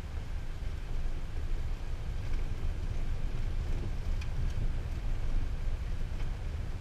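Steady low rumble of a vehicle rolling along a gravel road, heard from inside the cabin, with a few faint ticks about the middle.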